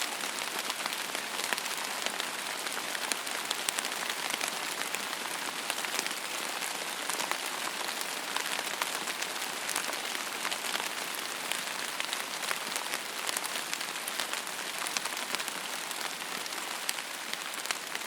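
Steady rain falling in a forest, a dense patter of many separate drops hitting the surfaces around.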